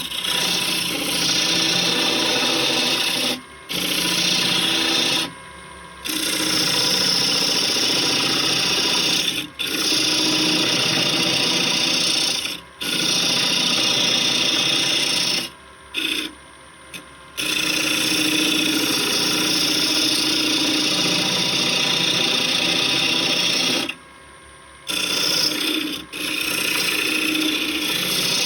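A wood blank spinning on a wood lathe while a tool works its surface, giving a steady scraping noise. The scraping stops briefly several times as the tool comes off the wood, then starts again.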